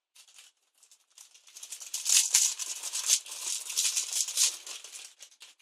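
Plastic packaging crinkling and rustling as it is handled and opened, starting faint and getting loud and busy about two seconds in.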